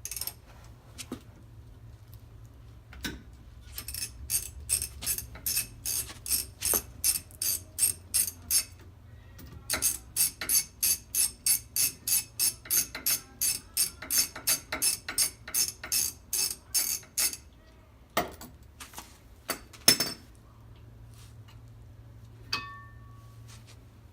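Socket ratchet wrench clicking steadily, about three clicks a second, in two long runs as a 14 mm brake caliper bolt is backed out. A few metal knocks follow near the end, the loudest a sharp knock a little before the close.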